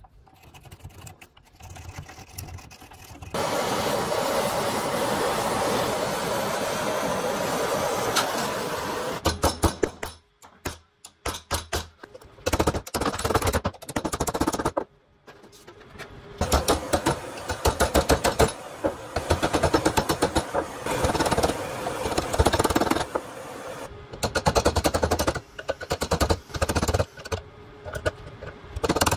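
Hand-tool work at a bench vise: a saw cutting a hardwood block, with a few seconds of steady cutting noise, then long runs of rapid, evenly repeated sharp strokes and metal taps on a brass rod clamped in the vise.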